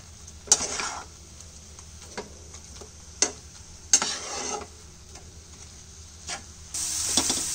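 A flat spatula scraping and knocking in a non-stick frying pan as minced prawn with onion is stirred and fried: a few sharp knocks among short scrapes. Near the end a steady sizzle comes up as the water released by the prawns cooks off.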